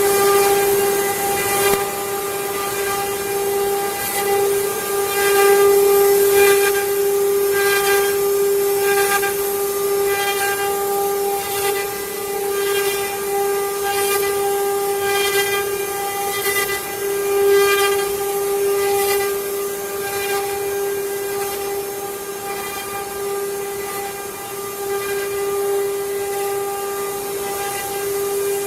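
Spindle of a CNC wood-carving router running with a steady high whine while it cuts wood, over a hiss of cutting noise that swells and fades repeatedly.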